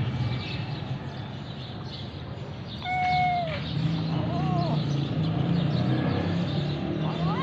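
Kitten meowing a few times, short high calls that rise and fall, over a steady low hum.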